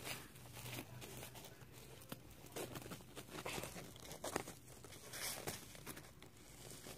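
Faint rustling and scattered light clicks as fidget spinners are handled and fitted into a display holder.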